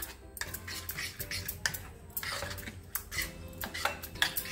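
Metal spoon clinking and scraping against a mixing bowl in irregular light clicks, stirring a thick gram-flour spice batter.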